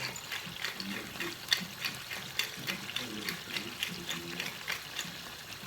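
Pepper mill being twisted over a pan, grinding out a run of short clicks at about three a second.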